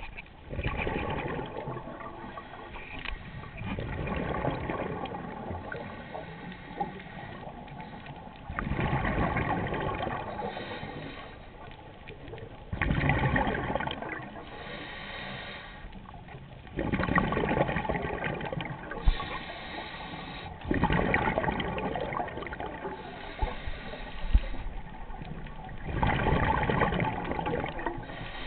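Scuba diver breathing through a regulator underwater: a gushing rush of exhaled bubbles about every four seconds, each lasting a second or two, with a quieter hiss between breaths and a few sharp clicks.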